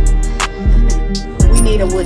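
Background music with a steady beat: deep bass hits about every 0.7 s under crisp high clicks and held tones.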